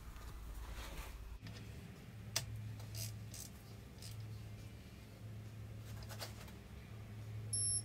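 Faint, scattered metallic clicks and scrapes of hand tools being handled on a bare engine block, over a low steady hum.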